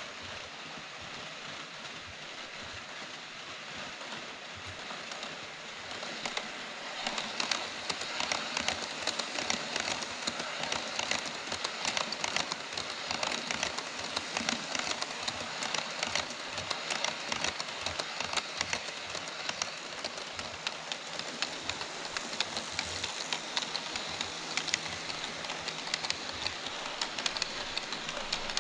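HO scale model trains, an E5 series Shinkansen and a Taki 43000 tank-car train, rolling over KATO Unitrack on a plastic viaduct: a steady rolling hiss with a rapid patter of wheel clicks, growing louder about six seconds in as the trains come close.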